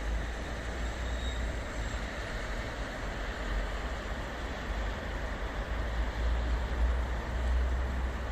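Wind buffeting the microphone: a gusting low rumble, strongest near the end, over a steady hiss.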